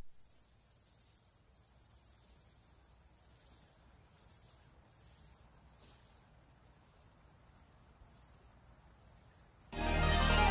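Faint, steady, high-pitched chirping of crickets. Near the end, loud music starts suddenly over it.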